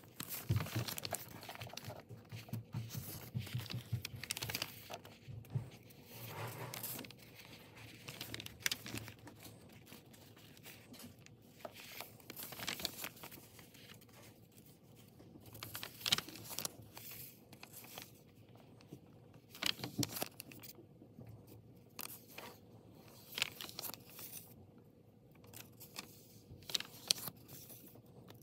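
Pages of a small sketchbook being turned and handled: stiff, paint-coated paper rustling and crackling, with scattered light taps.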